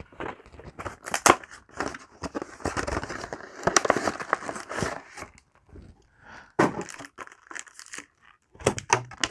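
Plastic wrapper of a Yu-Gi-Oh! booster pack being torn open and crinkled in the hands for several seconds, followed by a few shorter rustles as the pack and cards are handled.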